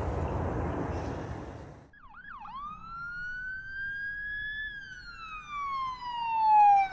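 Siren sound effect for the intro: a couple of quick whoops, then one long wail that rises slowly and falls away, loudest near the end. It is preceded by about two seconds of steady outdoor noise.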